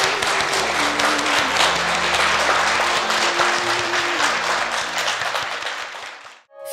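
A roomful of seated guests applauding, a dense steady clapping that fades out near the end.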